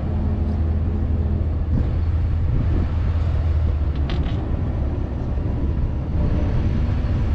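Nodwell tracked carrier driving slowly over dirt, its engine running with a steady low drone. A few short squeaks come from the tracks and running gear, one about four seconds in.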